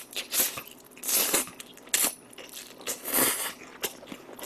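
Noodles being slurped into the mouth in several short slurps, with wet chewing between.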